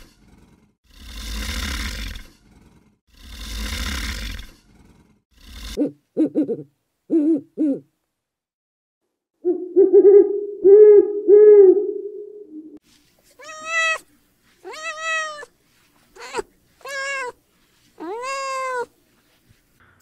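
A string of different animal calls. It opens with three long, rough, breathy blasts about two seconds apart. Short pitched calls follow, then a loud held buzzing call with a few pulses, and near the end a run of six high arched calls that rise and fall.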